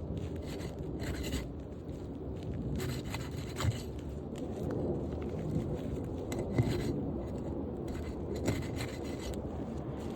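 Irregular scraping and rubbing of asphalt roof shingles being worked loose and pried up, with a few sharp knocks.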